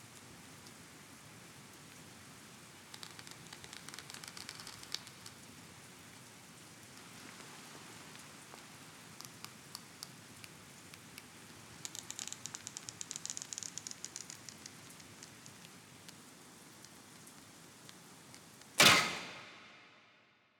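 A Japanese longbow (yumi) being drawn, with two spells of faint creaking and rustling crackle, then the release near the end: a sharp, loud snap of the bowstring (tsurune) that rings and dies away over about a second and a half.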